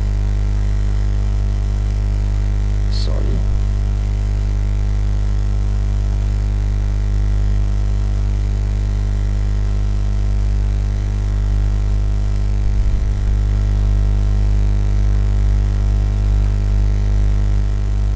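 Steady electrical mains hum: a low buzz with a stack of even overtones that does not change. There is a brief faint noise about three seconds in and a short low bump near thirteen seconds.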